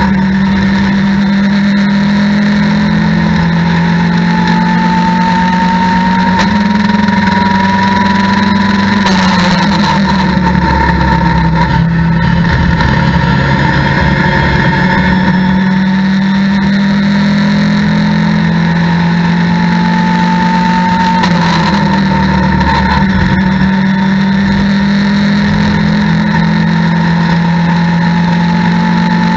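Mitjet race car's engine heard from inside the cockpit, running hard under full throttle with its pitch slowly climbing, falling about ten seconds in and again around 22 seconds as the car slows and changes down, then climbing again. A fainter whine rises and falls with it.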